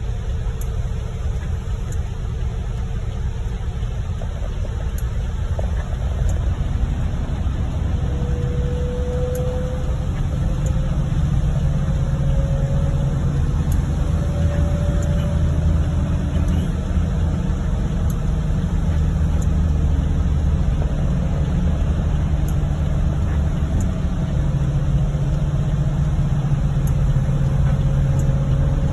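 Car cabin noise while driving on a wet highway in heavy rain: a steady low rumble of engine and tyres. A faint engine note comes in about eight seconds in and rises a little as the car picks up speed.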